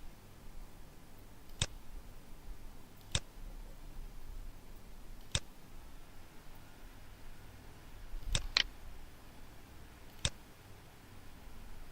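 Computer mouse clicking: single sharp clicks a second or two apart, with a quick double click about eight and a half seconds in, over faint room hiss.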